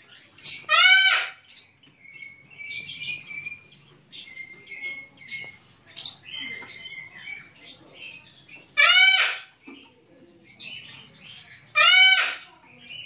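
Caged Javan bush lark (branjangan) in full song: a run of varied high chirps and short trills, broken by three loud, drawn-out calls that rise and fall, near the start, about nine seconds in and about twelve seconds in.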